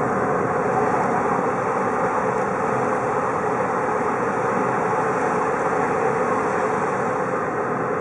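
Steady road and engine noise heard from inside a moving car's cabin.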